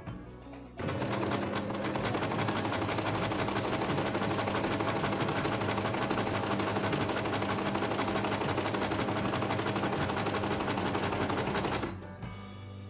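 Home sewing machine stitching along a folded fabric strap in a steady, rapid run. It starts about a second in and stops about a second before the end.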